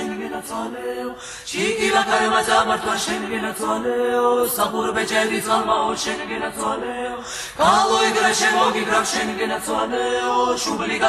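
Unaccompanied choir singing in harmony over a held low drone. New phrases start about a second and a half in and again near the middle.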